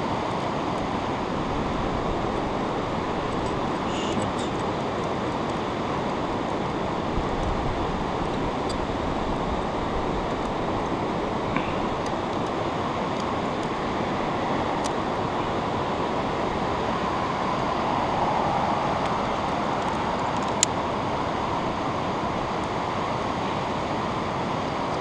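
Steady rushing of a whitewater river below, with a few faint sharp clicks of metal climbing gear (carabiners on a quickdraw) being handled, the sharpest near the end.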